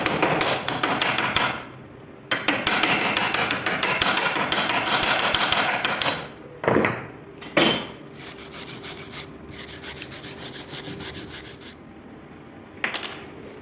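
Rapid, even scraping and tapping on metal in two long runs, with two sharp knocks in the middle and a quieter run of strokes after them.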